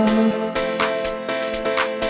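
Instrumental background music: held notes and a melody over a steady beat of about two strokes a second.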